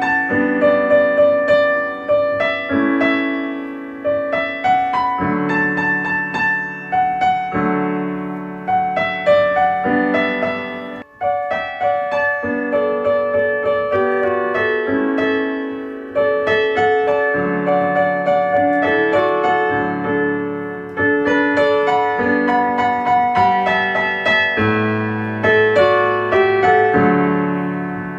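Solo piano music: slow, gentle chords and melody notes, each struck and left to ring out, with a brief pause about eleven seconds in.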